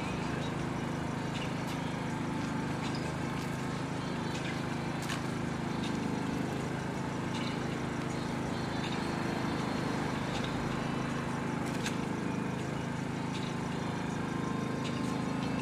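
An engine running steadily at idle, an even low hum, with a few faint clicks.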